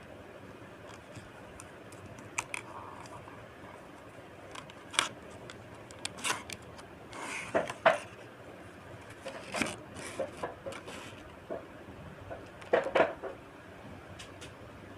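Cardboard box and clear plastic tray of an earphone package being handled and opened: irregular clicks, scrapes and crinkles, loudest about a third of the way in, around the middle, and again near the end.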